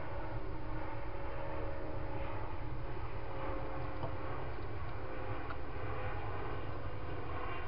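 Steady low background rumble with faint long-held tones that drift slightly lower, with no distinct nearby event.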